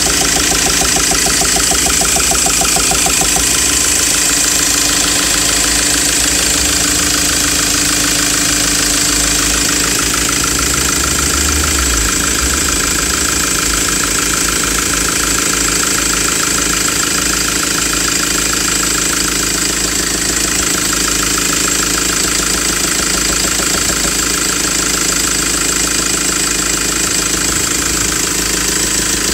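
Ford Transit engine idling steadily with a repetitive knock from the engine, the fault the owner is recording.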